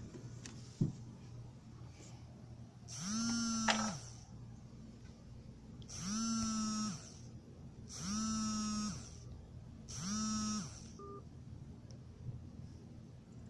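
A small electric motor switched on four times in short bursts of about a second each, spinning up to a steady hum and winding down each time, after a single sharp click.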